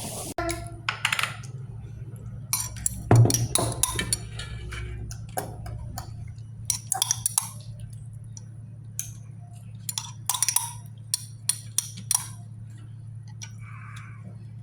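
Irregular clinks and taps of utensils against a plate and dishes as food is handled, a few at a time with short gaps, over a steady low hum.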